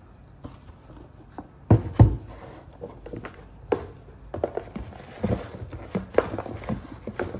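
A corrugated cardboard shipping box is handled: two loud thumps about two seconds in as it is set down, then cardboard and paper flaps rustling, scraping and tapping as hands open it.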